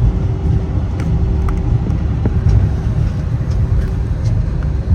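Jet airliner cabin noise on the ground: a deep, steady rumble of the engines and rolling gear, with a constant hum and a few light rattles of cabin fittings.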